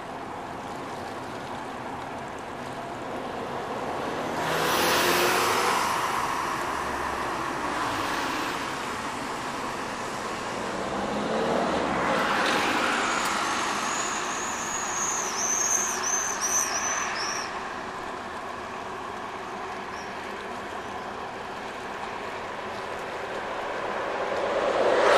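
Road vehicles passing close by one after another, each swelling and fading with a falling pitch as it goes past. Near the end a louder rumble builds as a train passes.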